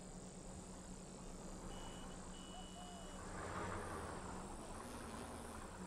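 Faint room tone: a steady low hum under soft hiss, with a brief swell of noise about halfway through.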